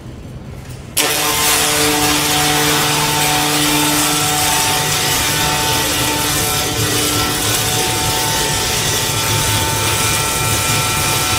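Wire-fed welding arc on a steel pipe joint, a steady crackling hiss that starts suddenly about a second in and holds level, with a few faint steady tones underneath.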